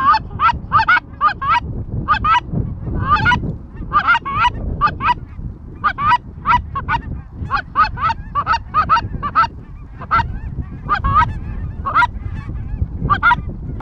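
Goose honks and clucks in quick runs of several short calls a second, thinning out over the last few seconds.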